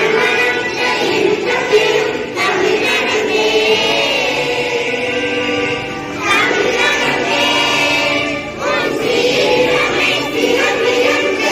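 A children's choir singing a prayer song in unison at a school assembly, continuous group singing.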